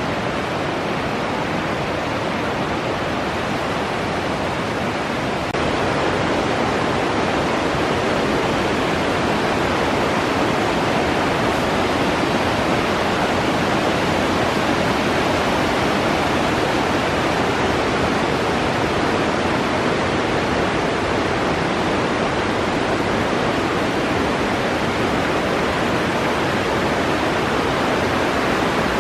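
Rushing water of a mountain stream running high and fast after a typhoon, a steady, dense roar that grows a little louder about six seconds in.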